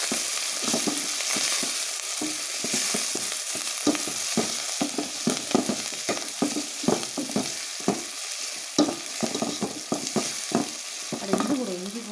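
Chopped tomato, onion, mint and coriander leaves sizzling in hot oil in an aluminium pot while being sautéed, stirred briskly with a wooden spatula that scrapes and knocks against the pot several times a second.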